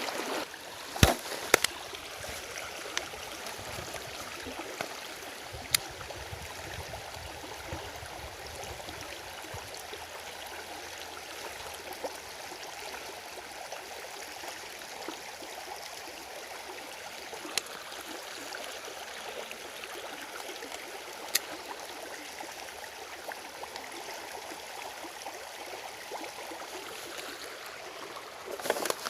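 Shallow stream flowing steadily, an even rush of running water, with a handful of sharp clicks or taps scattered through it.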